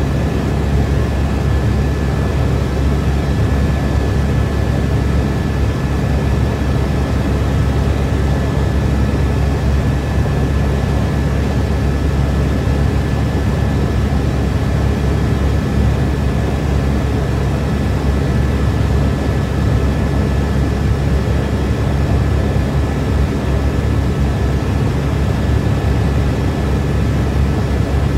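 Helicopter in flight heard from inside the cabin: a loud, steady, low drone of engine and rotor, with a thin steady whine above it.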